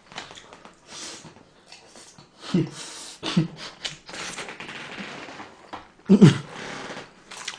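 Noodles being slurped and chewed close to the microphone, broken by three short voiced hums, the last and loudest a little after six seconds in.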